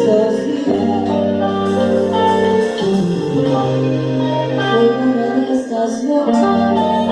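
Band music played live, led by guitar, with held chords whose bass notes change a few times.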